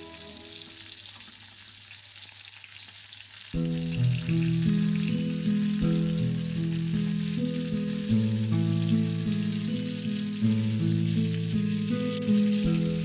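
Marinated tuna pieces frying in hot oil in a pan, a steady sizzle. About three and a half seconds in, background music starts and becomes the loudest sound.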